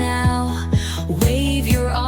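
Upbeat instrumental backing music of a children's song. A kick drum beats about twice a second over a steady bass line, with a gliding lead melody above.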